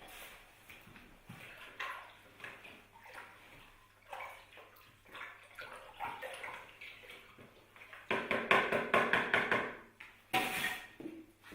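Water pouring and splashing irregularly through an Escher waterfall model, with a louder gush of water about eight seconds in and another briefly near the end.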